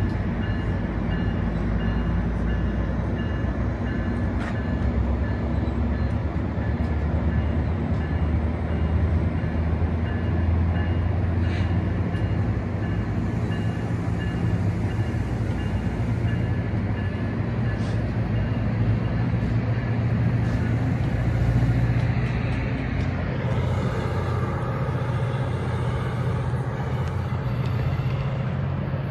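MARC commuter train's bilevel passenger coaches rolling past as the train departs, a steady low rumble of wheels on rail and running gear.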